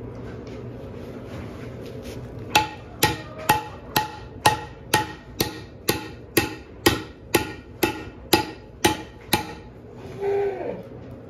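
Hammer striking a red-hot bent steel piece to drive it back straight: about fifteen steady blows, two a second, starting about two and a half seconds in, each with a short metallic ring.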